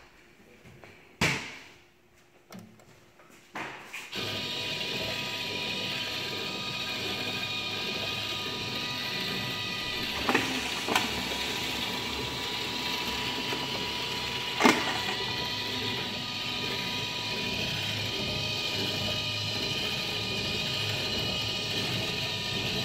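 An APC 2.0 photo sheet cutter starts up about four seconds in and runs steadily with a motor hum and a thin whine. A few sharp knocks come through as the sheet is fed and cut. Before it starts there are only a few light clicks.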